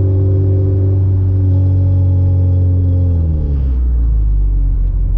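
Car engine running on open headers at a steady raised speed; about three seconds in its pitch falls as the revs drop back to a lower idle.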